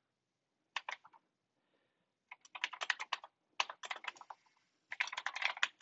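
Typing on a computer keyboard: short runs of quick keystrokes separated by brief pauses, starting about a second in.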